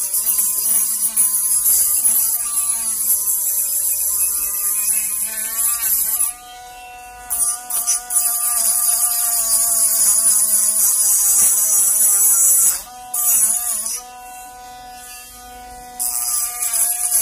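Dremel rotary tool grinding on a small metal can part. The motor whine sags and wavers while it bites, and the grinding hiss drops out three times (about six seconds in, briefly near thirteen seconds, and for about two seconds near the end) while the motor keeps spinning free at a steady higher pitch.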